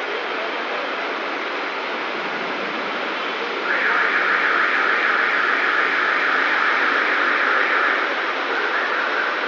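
Heavy rain pouring onto a flooded street, a steady hiss of rain and running water. About four seconds in, a louder, brighter rush of water starts suddenly and lasts about four seconds.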